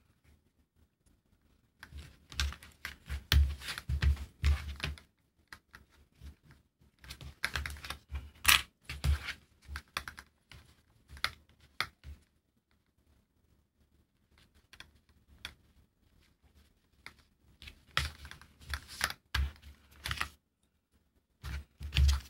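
Small plastic sewing clips clicking and clattering as they are picked from a pile and snapped onto the edge of a nylon webbing strap, in several short runs of quick clicks with quiet pauses between.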